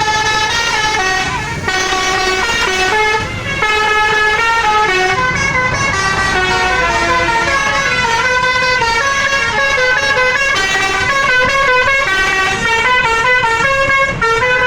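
Bus 'telolet' basuri horn playing a tune, loud pitched notes stepping up and down in quick succession, with a short break about three seconds in.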